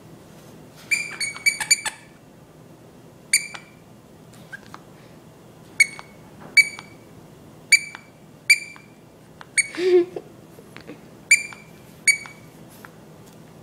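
Squeaker in a plush dog toy squeezed again and again: short high squeaks all at the same pitch. There is a quick run of about five near the start, then single squeaks roughly a second apart, and a brief low sound about ten seconds in.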